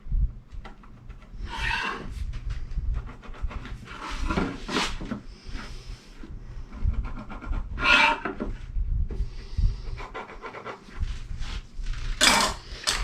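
Pencil rubbing and scratching on a wooden board while centre marks are drawn, with a carpenter's square handled against the wood. There are a few short strokes, a few seconds apart.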